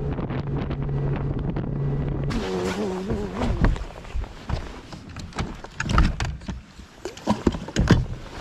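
Bass boat motor running with a steady hum, its pitch wavering for a moment after about two seconds before it fades out; scattered knocks and thumps follow.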